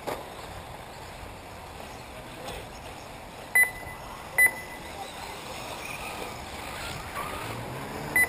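Short, high electronic beeps, each a quick double pip, about three and a half seconds in, again about a second later, and once more near the end, over a steady outdoor hiss.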